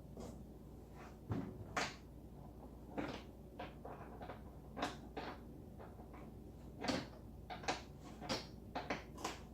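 Irregular clicks, knocks and light rattles of hose connectors being handled and fitted into a water tank, coming more often near the end, over a faint steady hum.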